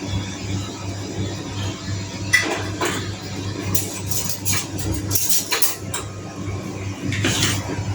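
A few short clinks and scrapes of a spoon against spice containers and a bowl while spices are measured out, over a steady low hum.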